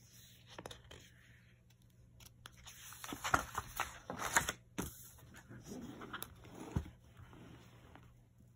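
Pages of a spiral-bound sketchbook being turned and handled: paper rustling and crinkling, heaviest about three to five seconds in, with a sharp tick near the end.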